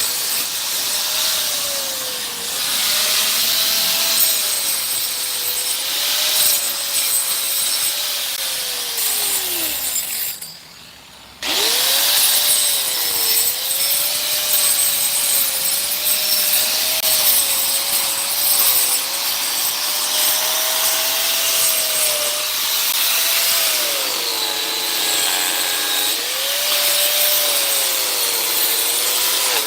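Electric power tool running, its motor whine dipping and recovering again and again as it works wood. It winds down about ten seconds in and starts up again a second later.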